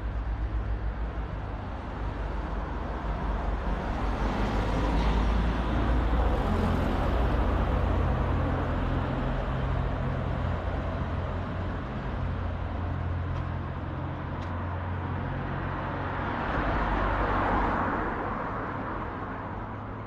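Road traffic on a town street: cars pass close by with engine and tyre noise, one swelling a few seconds in and another near the end, over a steady low rumble.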